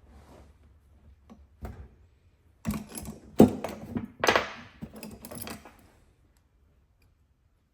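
Small metal carburetor parts and tools clicking and clattering as they are handled on a workbench, with a brief scrape; the loudest knocks come about three and a half and four seconds in.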